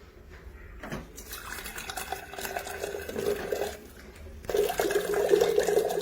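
Water running from a water cooler's dispenser tap into a container, in two runs: one starting about a second in and a louder one starting past the middle.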